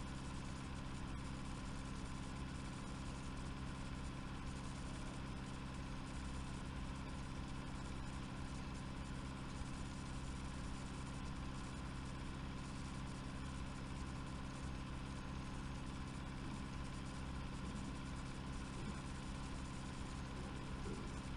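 Steady low hum with an even hiss and no other sound: the background noise of the recording.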